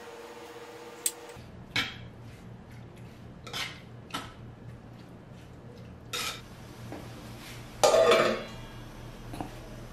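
Steel spoon clinking and scraping against a clay pot in a few separate knocks while prawns are stirred with spices. About eight seconds in, a stainless steel lid is set down on the pot with a louder clang that rings briefly.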